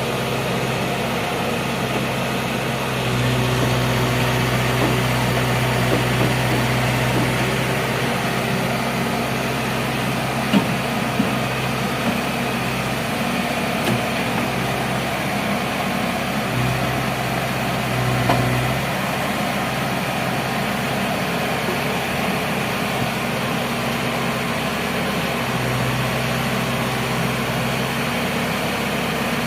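Heavy construction machine's diesel engine running steadily. Its low hum swells louder in three stretches, about three to twelve seconds in, around seventeen to nineteen seconds, and again near the end. A few short sharp clanks sound in the middle.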